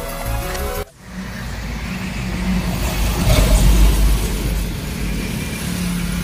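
Background music until a cut about a second in, then a Mahindra 275 Yuvo tractor's three-cylinder diesel engine running, briefly louder around the middle.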